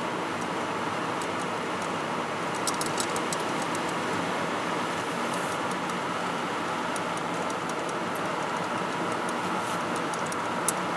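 Steady road and engine noise heard from inside a moving car's cabin, with scattered light clicks, one sharper near the end.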